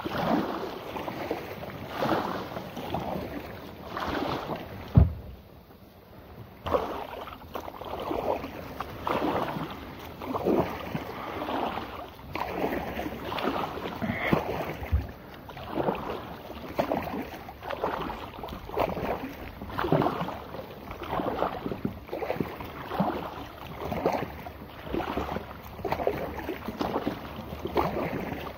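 Kayak paddle strokes, the blades dipping and splashing among lily pads in a steady rhythm of about one stroke a second. A single sharp knock about five seconds in, followed by a short pause in the strokes.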